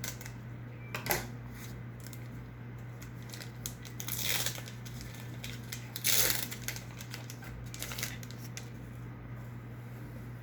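Pokémon trading cards being handled: scattered light clicks and taps, with two short swishing rustles about four and six seconds in, over a steady low hum.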